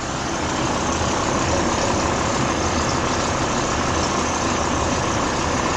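Car engine idling with a grunting noise from the belt drive, which the owner takes to be a failing crankshaft damper pulley.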